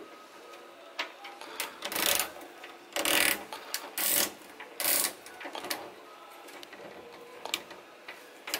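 Plastic straps of a strap-type toggle bolt anchor clicking as the cap is ratcheted along them into the drywall hole, then bent and broken off flush with the wall. There are small clicks throughout and about four louder crackling bursts in the middle.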